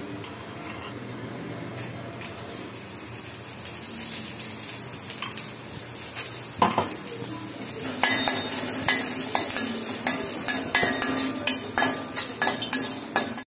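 Metal spatula stirring garlic cloves in a dry iron kadai, scraping and clinking against the pan in quick repeated strokes from about eight seconds in, with a few earlier knocks. A steady low hiss runs underneath.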